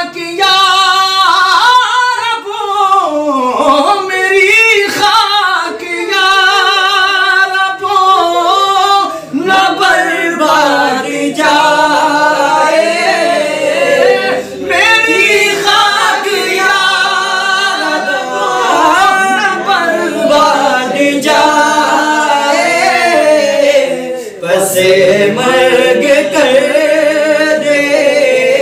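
A man singing an Urdu naat unaccompanied, in long drawn-out phrases with a wavering, ornamented melody and short breaths between them.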